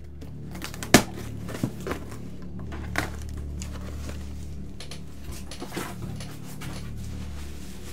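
Handling noise from unpacking a mask: a few sharp knocks and clicks, the loudest about a second in, with light rustling of packaging over a steady low hum.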